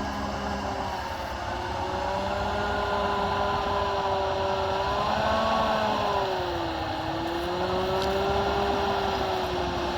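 John Deere 7280R tractor's six-cylinder diesel engine working steadily under the load of a seven-furrow plough. Its note rises slightly about five seconds in, dips a moment later, then steadies again.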